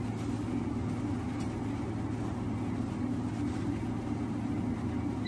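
Steady low machine hum from an automatic laser welding machine standing idle under power, with a faint click about one and a half seconds in.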